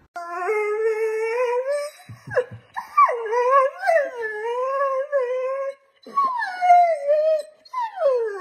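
A dog howling in long, drawn-out calls that waver up and down in pitch, with a short break about six seconds in and falling calls near the end.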